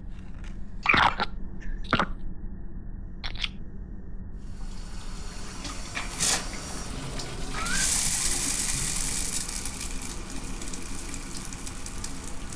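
Shower running: a steady hiss of spraying water that starts about four and a half seconds in and grows louder about three seconds later. Before it come a few short sharp sounds.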